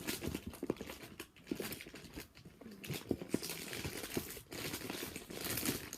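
Rustling and crinkling of plastic as a pile of squishy toys is mixed and shuffled by hand, in a run of short irregular crackles.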